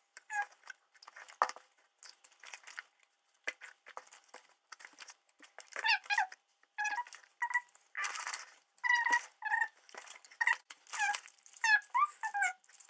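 Many short, high, gliding chirps or squeaks from an animal, coming in quick runs, mixed with clicks and crinkles of plastic packaging being handled.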